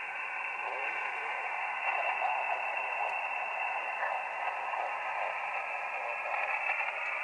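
Elecraft KX2 receiving on 40 metres single sideband through its speaker: a steady, narrow-band hiss of band noise with a weak station's voice faint in it.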